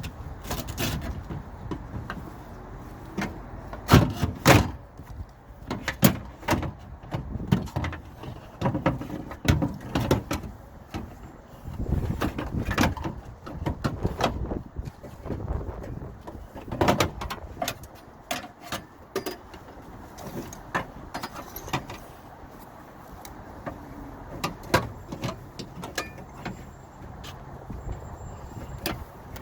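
Irregular metal clunks, clicks and scraping from a window regulator and its rail being worked around inside a car door shell. The sharpest knocks come about four seconds in and again around seventeen seconds.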